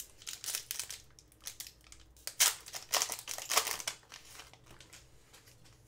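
Foil hockey card pack wrappers crinkling and rustling in hand as packs are torn open, in irregular short bursts that are loudest through the middle and thin out near the end.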